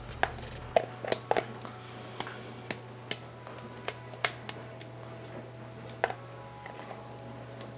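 Scattered sharp clicks and light taps of a container and utensils being handled over a metal cooking pot, over a steady low hum.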